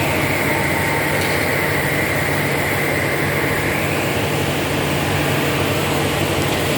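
Toyota Axio Hybrid's engine running steadily, with no separate knocks standing out.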